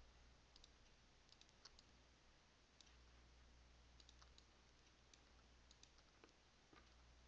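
Near silence: a low, steady room hum with faint, scattered clicks from computer controls as mesh edges are selected.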